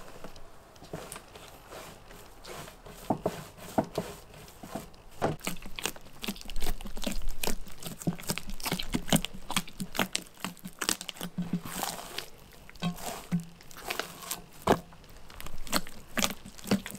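Hands kneading a large mass of soft, wet msemen dough in a glazed earthenware bowl, fists and knuckles pressing and folding it: an irregular run of sticky squishes and soft slaps, busiest in the second half.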